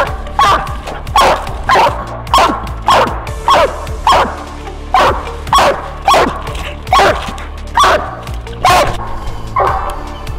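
Coonhound barking treed at the base of a tree, a steady run of loud chop barks about one and a half a second, each dropping in pitch: the hound's signal that she has a raccoon up the tree.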